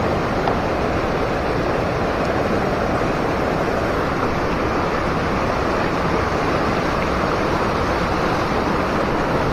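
A swollen river in spate, its water rushing loud and steady without a break.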